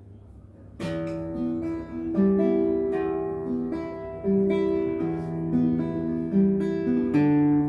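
Acoustic guitar played solo, a plucked melody of ringing notes over bass notes, starting about a second in.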